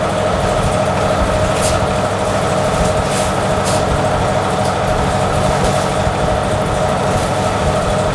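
Steady machine hum with a constant mid-pitched tone and a low rumble underneath, with a few faint crinkles of a plastic fish bag being handled about one and a half to three and a half seconds in.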